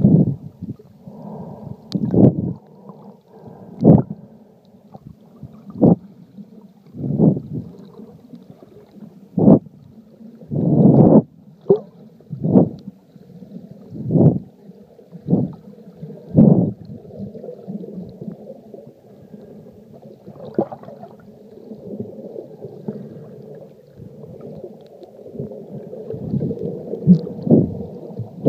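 Muffled underwater sound from an iPhone sealed in a Lifeproof waterproof case: a steady low rumble with dull whooshing thuds of water against the case every second or two.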